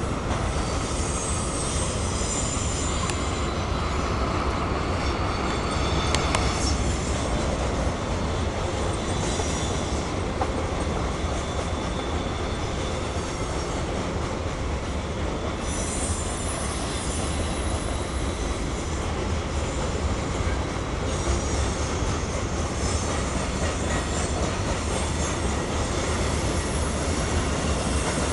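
Freight cars of a CSX mixed freight rolling steadily past: a continuous rumble of steel wheels on rail, with high wheel squeal coming and going several times and a few clanks about six seconds in.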